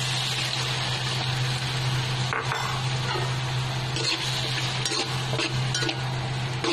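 Beaten egg sizzling in a wok of sautéed tomato, onion and garlic, with a spatula scraping and stirring against the pan; the scrapes come more often from about four seconds in.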